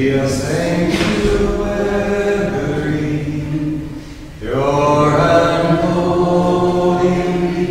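Slow sacred chant sung in long held notes: one phrase, a short pause about four seconds in, then the next phrase.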